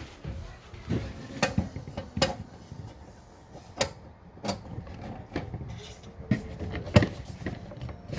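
Hands handling a resin 3D printer: scattered light clicks and knocks, about eight spread over several seconds.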